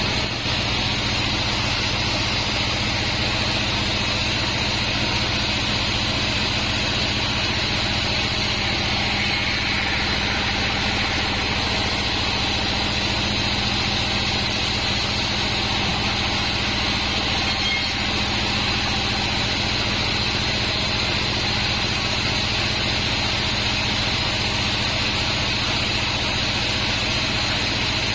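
36-inch band sawmill running steadily, its motor and blade giving a constant machine hum with a steady high whine.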